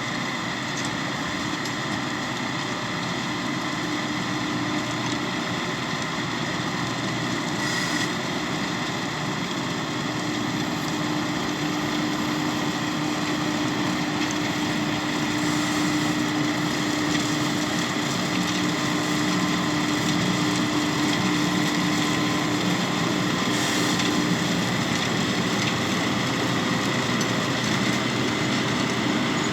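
New Holland T6 tractor engine running steadily under load, a constant drone with a faint high whine that slowly grows louder.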